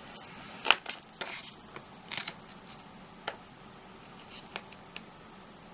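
A few light clicks and taps from craft materials and tools being handled on a tabletop, with quiet stretches between.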